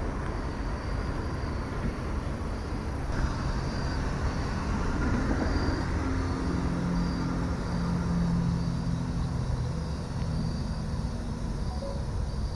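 A distant engine drone that swells and fades through the middle, over a steady low rumble, with a faint insect chirp pulsing about once a second.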